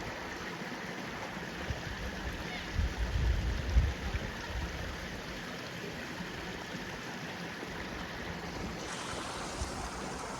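Steady rush of running water from a stream, with wind buffeting the microphone for a second or so about three seconds in.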